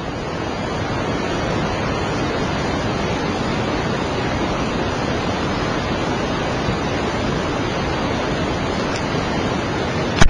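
Fast-flowing flash-flood water in a desert wadi: a steady, even rush of noise that swells in over the first second or so and then holds.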